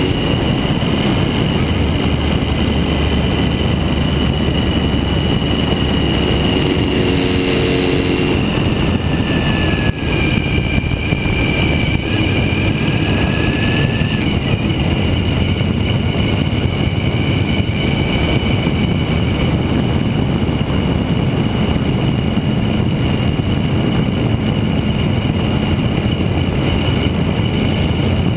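Suzuki V-Strom 1000's V-twin engine running under way, under a steady, loud rush of wind over the bike-mounted microphone. A short tone cuts in about seven seconds in.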